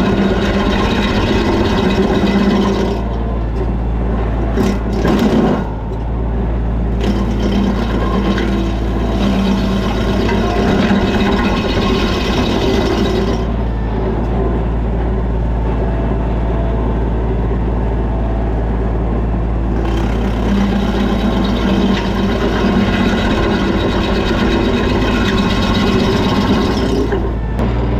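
A Kioti compact tractor's diesel engine running steadily under load, driving a PTO-powered MechMaxx stump grinder whose cutter wheel grinds into a wood stump. The grinding noise swells and drops back a few times as the wheel is worked across the stump.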